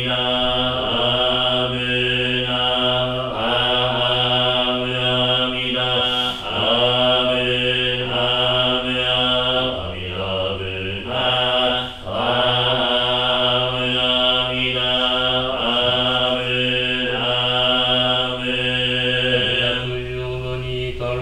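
Jōdo Shinshū Buddhist shōmyō chanting of the morning service: long drawn-out syllables sung on a slow melody, each note held and then sliding to the next, with short breaths between phrases.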